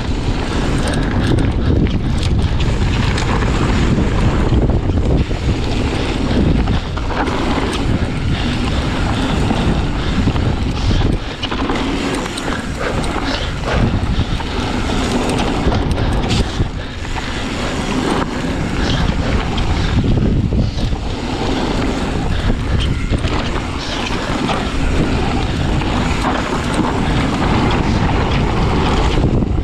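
Wind rushing over the microphone of a GoPro action camera on a mountain bike ridden fast downhill, with the rumble of the tyres and irregular knocks as the bike goes over rough ground.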